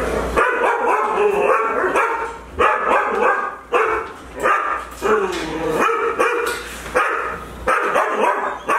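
Dogs barking over and over, a steady run of barks at one to two a second.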